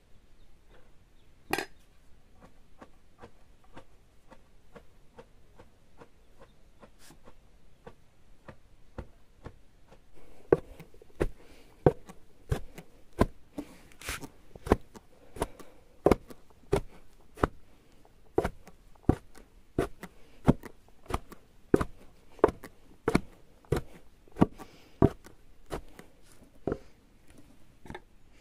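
Boiled soybeans being pounded in a wooden mortar with a long wooden pestle: after about ten seconds of light taps, a steady run of thuds about three every two seconds. This is the crushing of the cooked beans into a coarse paste for kinema.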